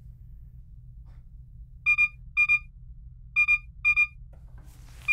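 Escape-module console sounding an incoming-transmission alert: short electronic beeps in pairs, half a second apart within each pair, the two pairs about a second and a half apart, starting about two seconds in. A steady low hum runs underneath.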